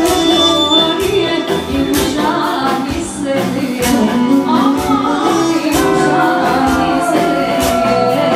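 Albanian folk dance music for a valle: a singer over a melody instrument and a steady drum beat.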